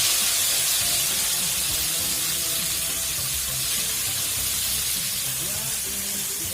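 Freshly added chopped greens sizzling loudly in hot oil in a frying pan. The steady hiss eases off slowly as the pan recovers from the moisture of the leaves.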